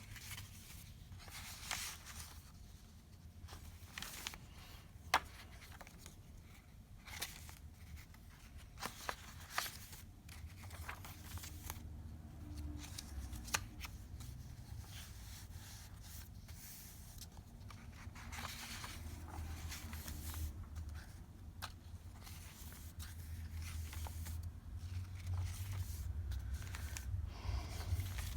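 Pages and paper pockets of a handmade junk journal being turned and handled: paper rustling and crinkling with scattered sharp clicks and taps, over a steady low hum.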